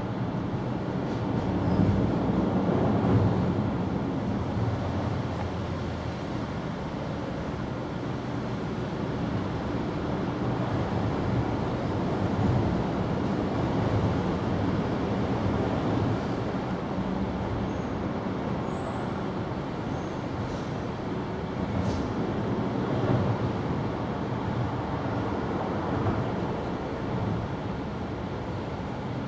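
Steady low rumble of motor noise, swelling slightly about two to three seconds in, with a few faint high chirps.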